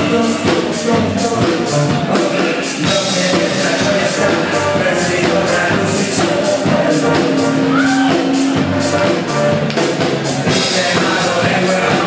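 Band music with singing over a drum kit keeping a steady beat.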